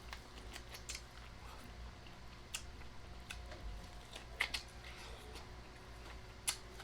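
A person chewing crunchy food, with scattered sharp crunches and wet mouth clicks. The loudest crunches come about four and a half seconds in and again near the end.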